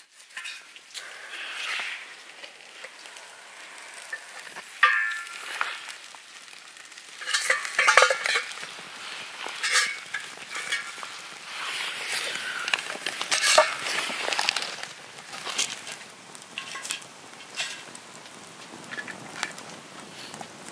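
Split firewood knocking as it is stacked into a metal fire can, then a torch hissing as it lights the wood, and the fire starting to crackle with scattered sharp pops.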